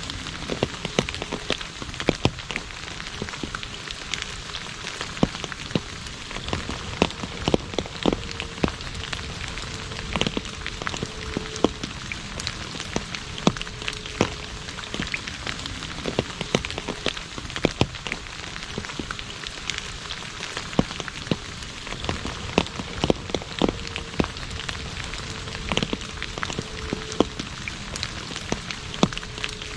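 Rain falling on an asphalt road: a steady patter with many sharp individual drop splashes.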